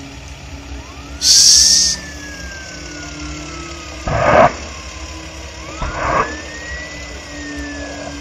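Emergency siren wailing, rising then slowly falling in pitch twice. It is broken by short loud bursts of noise, the loudest a high hiss about a second in.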